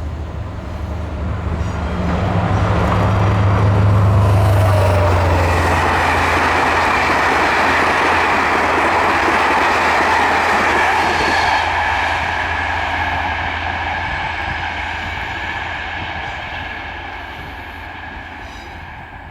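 A passenger train hauled by steam tank locomotive 141 TB 424 running past on the rails. The rolling and rumbling grow to their loudest a few seconds in, then fade steadily as the train moves away, with high steady ringing tones over the later part.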